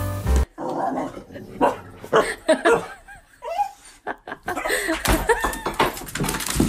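A dog barking, with short cries that slide in pitch.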